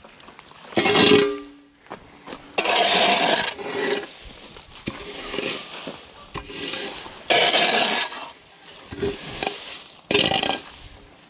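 Repeated scraping and rustling strokes as a long-handled shovel scoops loose storm debris (grass, leaves and cedar twigs) off asphalt, one stroke every second or two, the loudest about a second in.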